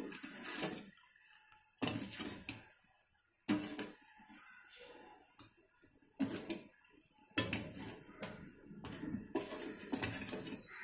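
A steel ladle clinking and scraping against a stainless-steel pot while sugar and water are stirred together to dissolve the sugar for syrup. The clinks come irregularly, with a few sharper knocks.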